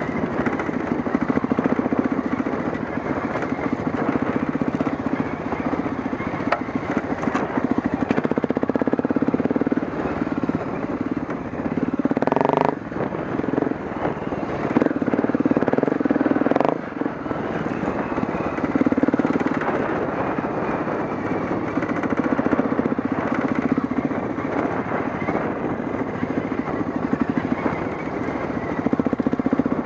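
Dirt bike engine running while riding a rocky trail, its note swelling and easing as the throttle opens and closes. Two sharp knocks come about four seconds apart around the middle.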